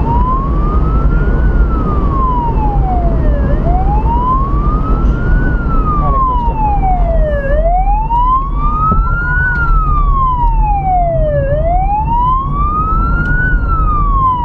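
Police car's electronic siren on a slow wail, rising and falling about every four seconds, over a steady low road and engine rumble inside the moving car.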